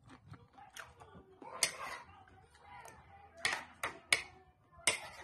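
Table noise while eating shellfish: seashells and a utensil clicking against dishes, about five sharp clicks at uneven intervals, most of them in the second half.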